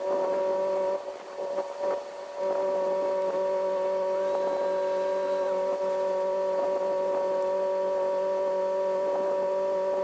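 Steady machine hum at one fixed pitch, like a motor running at constant speed. It drops away about a second in and comes back a second and a half later.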